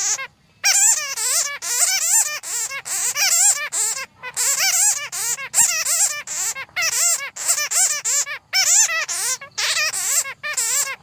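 Bats squeaking and chattering: rapid, high-pitched, wavering calls in dense runs, broken by a few brief pauses.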